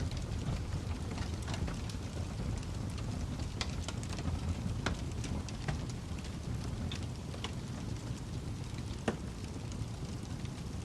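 Wood fire burning in a fireplace: a steady low rumble of flames with scattered crackles and pops from the burning logs, one louder pop about nine seconds in.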